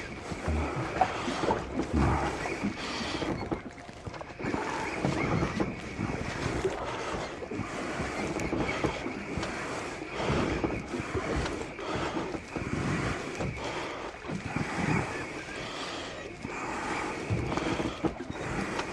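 Wind buffeting the microphone over the sea around a small boat, with water moving against the hull.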